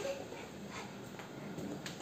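Quiet room tone with two faint taps, one right at the start and one near the end.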